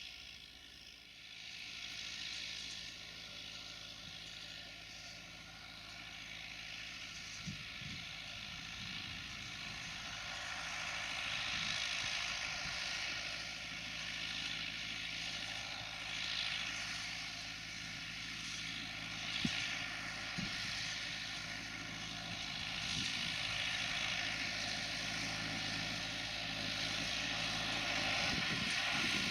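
Tractor engine running steadily, growing gradually louder, with a few faint knocks.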